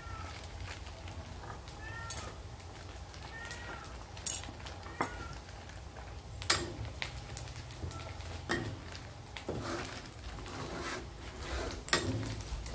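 A cat meows about five times, short rising-and-falling calls, mostly in the first eight seconds. Underneath, pork belly and skin fry in bubbling oil in a wok, and a metal spatula clicks sharply against the pan a few times, loudest about six seconds in and near the end.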